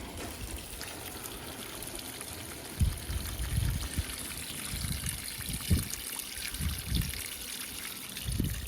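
Water pouring steadily into the tub of a National NA9450PN top-loading pulsator washing machine as it fills for a warm wash, with a few dull low thumps now and then.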